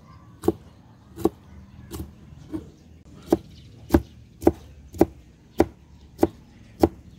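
A blade chopping bamboo shoots with steady, evenly paced strokes, about eleven cuts at a little under two a second.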